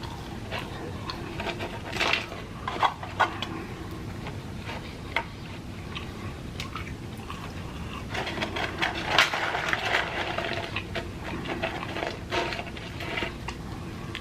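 Close-miked eating: wet chewing and mouth clicks over a low hum, with scattered sharp clicks. The sounds are busiest and loudest about eight to ten seconds in.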